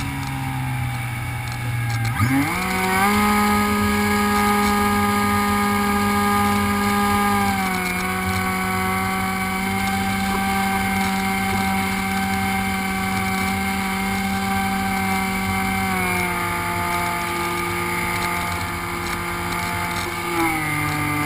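Electric motor and propeller of a HobbyKing Raptor FPV foam RC plane, heard from the onboard camera as a steady buzzing drone. Its pitch jumps sharply higher about two seconds in as the throttle is opened, steps down a little twice as power is eased back, and falls back low near the end.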